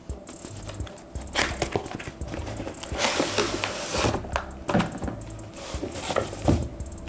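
Cardboard keyboard box being handled and opened: scattered knocks and clicks, with a rustling, scraping stretch about three seconds in as the packaging slides. Background music plays underneath.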